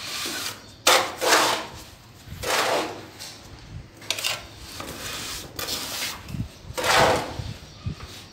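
Steel mason's trowel scraping and pressing cement mortar onto a plastered column edge: a series of rough scraping strokes, the loudest about a second in and again near seven seconds.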